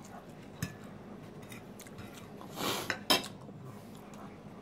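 Metal fork clinking and scraping against a plate of pie: a few separate light clicks, the sharpest about three seconds in, with a short hiss just before it.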